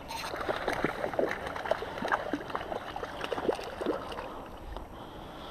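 Water splashing and gurgling in a quick, irregular run of small splashes that starts suddenly and dies away about four and a half seconds in.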